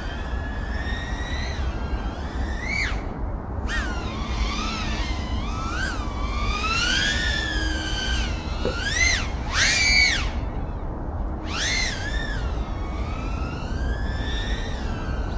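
3.5-inch FPV quad's four brushless motors (LA2005 2800kv) spinning Gemfan Hurricane 3520 props, whining with a pitch that rises and falls with the throttle. It spikes sharply on several throttle punches and drops away briefly twice where the throttle is cut. A steady rush of wind noise runs underneath.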